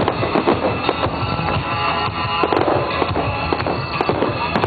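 Aerial fireworks bursting and crackling in quick succession, several shells at a time, over loud music played for the display.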